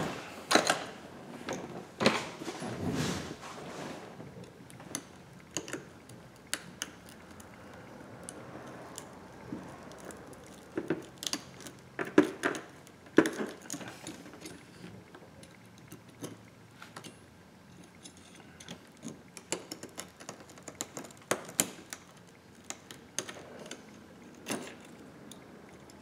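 Scattered light clicks, taps and clatter of a metal pry tool and small parts against an iPhone X's frame as it is pried open and handled. The clatter is busiest in the first few seconds and sharpest around twelve to thirteen seconds in.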